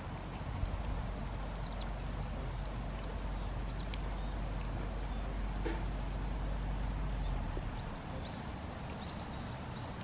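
Outdoor ambience: wind rumbling on the microphone, easing about three-quarters of the way through, with faint, scattered high chirps of small birds.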